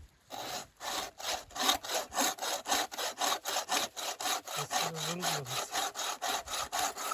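Hand saw cutting through wood with quick, even back-and-forth strokes, about three a second, starting shortly after the beginning.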